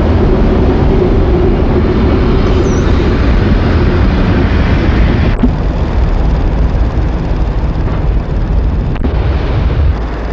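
An ÖBB class 1080 rod-coupled electric locomotive running past: a dense rumble with a steady hum for the first four seconds or so. Two short clicks come about five and nine seconds in.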